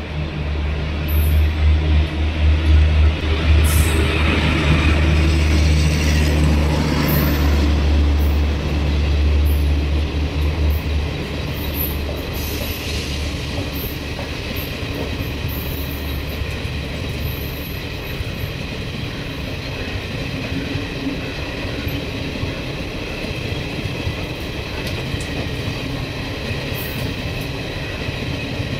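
A WAP-4 electric locomotive passes at speed with a loud low hum, loudest a few seconds in. It gives way after about ten seconds to the steady rumble and wheel clatter of its AC sleeper coaches rolling by.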